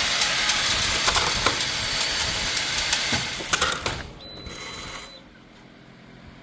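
ATLM ammo tray loading machine cycling: a dense metallic rattle of 9mm cartridges clinking as they are fed and dropped into trays. The rattle drops off about four seconds in, leaving a quieter machine hum with a faint high whine.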